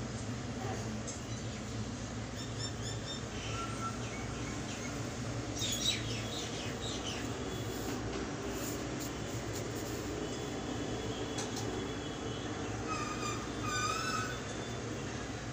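Steady low background hum, with bird chirps three times: about two and a half seconds in, around six seconds in, and near the end. A sharp click comes about six seconds in.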